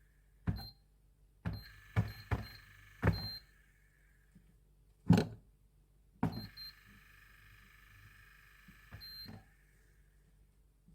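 A series of sharp clicks and knocks at irregular intervals, the loudest about five seconds in, from tools and parts being handled during a fan motor replacement. A faint ringing tone sounds between them.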